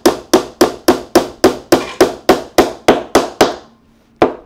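Claw hammer driving a glued wooden dowel into a sofa frame's wooden brace: quick, even blows of metal on wood, about four a second. The blows stop about three and a half seconds in, and one last single blow comes near the end.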